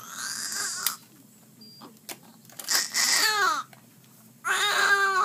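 A young child crying: a breathy cry at the start, then two drawn-out wails that fall in pitch, one about halfway through and one near the end. A sharp click comes just under a second in.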